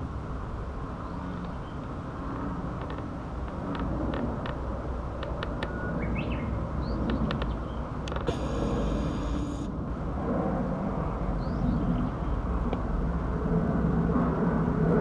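American bullfrogs calling from the pond: low droning calls that grow louder toward the end, over a steady low rumble, with a few short bird chirps.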